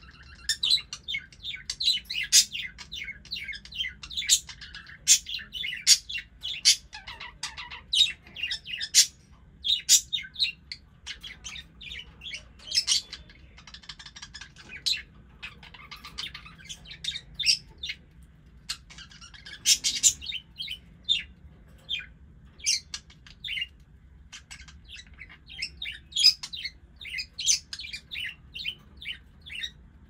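Pet budgerigars (budgies) chirping non-stop: a rapid, dense run of short, sharp high chirps with hardly a pause, and one louder call about two-thirds of the way through.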